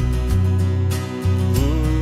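Country music with guitar over a steady bass line.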